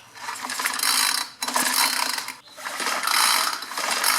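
Recoil pull-starter of a 4-cycle string trimmer pulled three times in a row, about a second per pull. The engine spins over freely with its spark plug out for a spark test.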